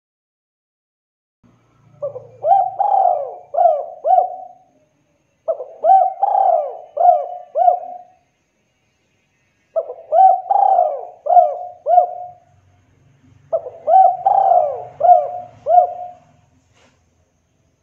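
Spotted dove (tekukur) cooing: four phrases of four or five notes each, separated by short pauses.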